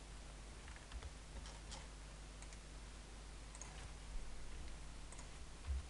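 Faint, scattered computer mouse and keyboard clicks, a few seconds apart, over a steady low hum.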